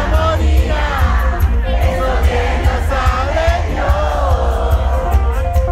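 Live pop concert music over a large PA, loud with heavy bass, with a lead vocal and the crowd singing along, heard from within the audience.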